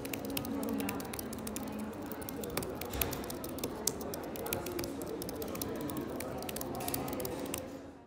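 Fast typing on an Apple Magic Keyboard with Touch ID: an irregular patter of soft scissor-switch key clicks, with one heavier key thump about three seconds in. The typing fades out just before the end.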